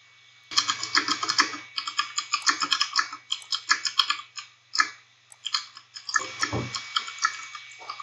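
A typing sound effect: rapid, irregular key clicks with a brief lull about five seconds in, over a steady low hum.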